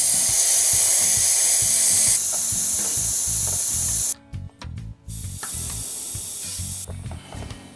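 Air hissing out of a motorcycle tyre's valve as the valve core is pressed down with a screwdriver to deflate it: a loud hiss for about four seconds, a short break, then a weaker hiss for about a second and a half.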